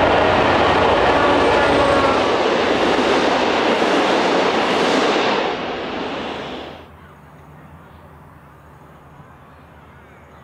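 A V/Line N class diesel-electric locomotive and its passenger carriages passing close by at speed, loud and steady. The sound eases about five and a half seconds in, then cuts off abruptly near seven seconds, leaving only faint outdoor background.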